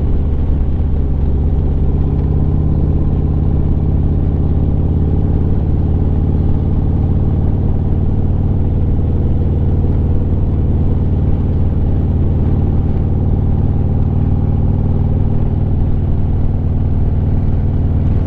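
Harley-Davidson Street Glide's V-twin engine running steadily at cruising speed, heard from the rider's seat with a deep, even drone.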